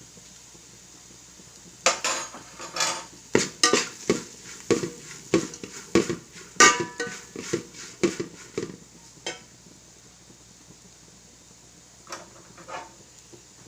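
A spatula stirring vegetables in a frying pan: a quick run of scrapes and clinks against the pan starting about two seconds in and stopping near the middle, then two more strokes near the end.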